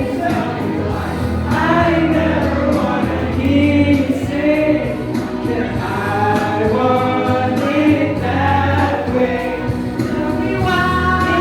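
Music with several voices singing together over a steady bass line.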